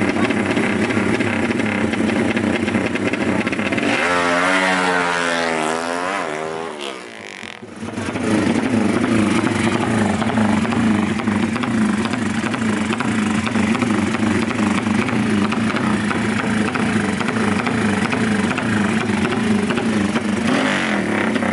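Modified racing motorcycle engines revving loudly and continuously, with a brief warbling dip about six to seven seconds in.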